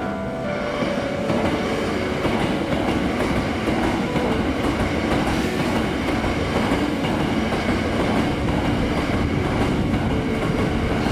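Hankyu electric train passing over a level crossing, its wheels clattering over the rail joints with a steady rumble.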